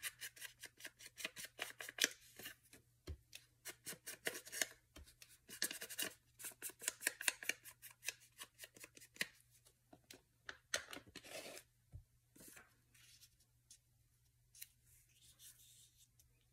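Paper being worked by hand at close range: quick runs of short, crisp clicks, several a second, that thin out and grow fainter after about twelve seconds.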